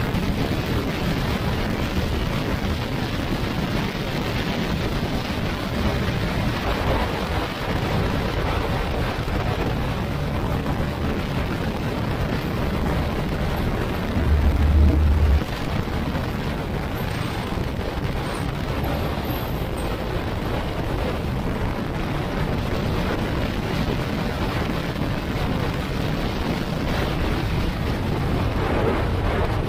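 Wind rushing over the microphone of a moving Yamaha NMAX scooter, with the scooter's engine and road noise running underneath. A heavier low buffet of wind comes about halfway through and lasts about a second.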